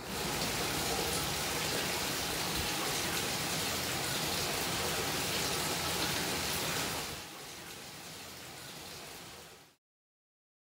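Water pouring from a spout into the stone basin of an old washhouse, a steady splashing rush. It turns quieter about seven seconds in, then cuts off abruptly near the end.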